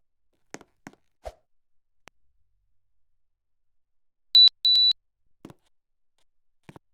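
Two electronic beeps at one high pitch, a short one followed by a slightly longer one, typical of an air conditioner's control panel acknowledging a command. A few soft clicks or taps come before and after the beeps.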